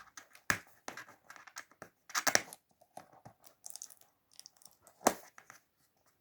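A product box being handled and worked open: irregular rustling, scraping and tapping of the packaging, the loudest bits about two seconds in and about five seconds in.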